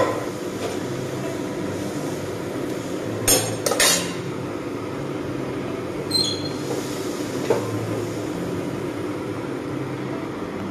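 Steel kitchenware clinking and clattering over a steady low hum. There are two sharp clatters about three and a half seconds in, then a ringing clink near six seconds and a lighter one shortly after.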